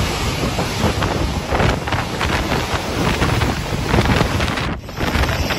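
Storm wind blasting the microphone, mixed with the rush of waves breaking over a seawall. The sound drops briefly near the end before the rush resumes.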